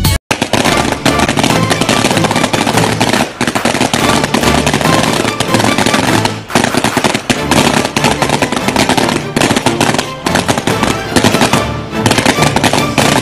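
A long string of Chinese firecrackers going off in a rapid, unbroken run of sharp bangs, bursting the balloons strung along it.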